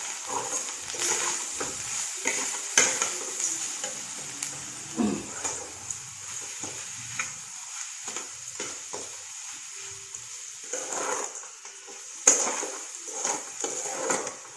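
Flat metal spatula stirring and scraping grated coconut and sugar around an aluminium kadai as they roast over a gas flame: irregular scrapes with a few sharper knocks against the pan, the loudest about three seconds in and near the end, over a steady high hiss.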